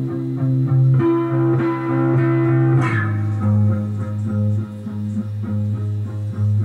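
Electric guitar holding low ringing notes, then a chord struck about three seconds in, followed by quickly repeated picked notes.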